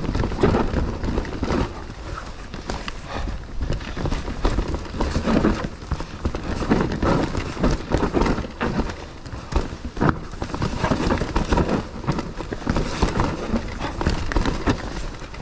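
Mountain bike riding fast down a rough forest dirt trail: tyres rolling over dirt and roots, with a constant irregular clatter and knocking from the bike as it takes the bumps.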